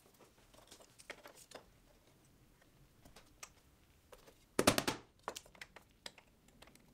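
Small clicks and taps from hand work on a leaded glass panel: glass pieces, lead came and nails being handled on a wooden workbench. A quick cluster of sharper clicks comes about two-thirds of the way through.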